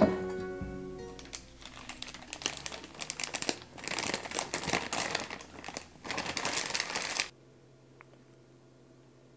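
Clear plastic piping bag full of soufflé pancake batter crinkling as it is handled, in quick irregular rustles for about five seconds that cut off suddenly near the end. Guitar music fades out at the very start.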